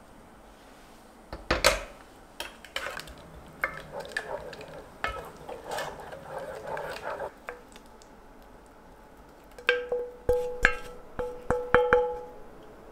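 A knock, then a wooden spoon stirring and scraping a thick grated-apple and sugar mixture in a small pot, with irregular clicks over about five seconds. Near the end a spoon clinks several times against a glass bowl, each clink leaving a short ringing tone.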